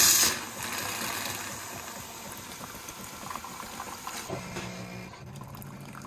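Jura automatic coffee machine partway through its milk system cleaning cycle, pushing water and steam through the milk spout and tube with a steady hiss and trickle. It opens with a short loud burst, and a faint low pump hum comes in about four seconds in.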